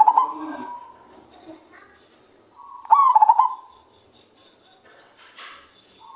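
Male zebra dove (perkutut) cooing in its deep voice: a short phrase of quick rolling notes at the start and another about three seconds in, each under a second long.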